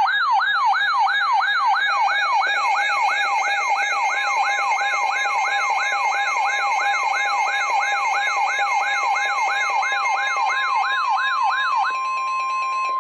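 Electronic siren-style alert tone, a fast yelp sweeping up and down about two and a half times a second. It gives way to a steady tone for the last second or so. It heralds a severe thunderstorm warning broadcast.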